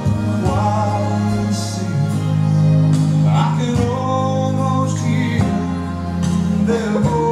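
A song playing: a singing voice with vibrato over guitar and held bass notes.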